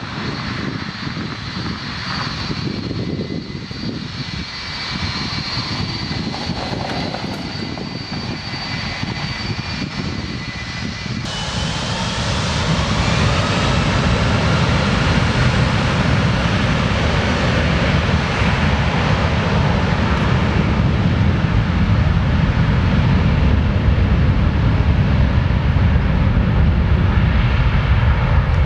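Royal New Zealand Air Force Boeing 757's two Rolls-Royce RB211 turbofans: a steady high whine at low power as it lines up, then about eleven seconds in a sudden change to a much louder rumble with a rising whine as it rolls on its takeoff run.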